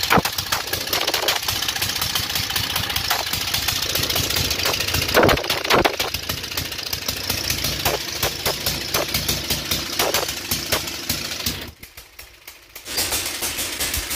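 Tecumseh flathead engine on a homemade minibike running with a rapid, choppy beat, with a couple of sharper pops about five and six seconds in. Near the end the engine sound drops away for about a second, then picks back up.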